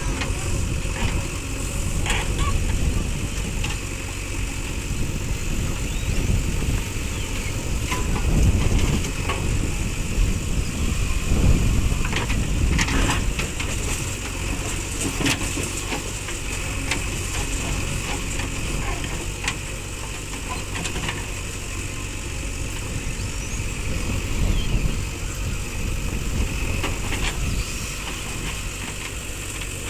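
Diesel engine of a JCB 3DX backhoe loader running at work, swelling in loudness a couple of times partway through, with occasional short sharp clicks over the steady rumble.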